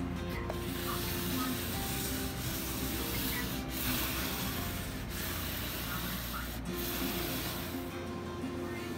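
1000-grit sandpaper on a hand sanding block rubbed lightly back and forth over the finished wooden top of an old radio cabinet: a steady hiss broken by short pauses between strokes, stopping shortly before the end.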